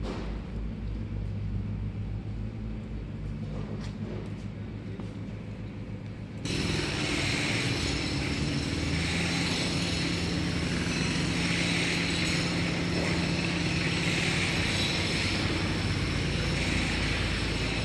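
Street ambience with a motor running at a steady low hum. About six seconds in, a much louder, steady machine noise with a strong hiss cuts in abruptly and runs on.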